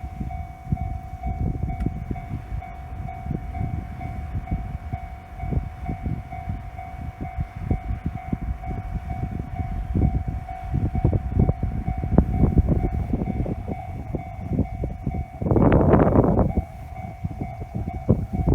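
Japanese level crossing warning bell ringing steadily as a single repeated tone while a train rumbles past with a run of irregular wheel knocks. A louder rushing noise comes near the end.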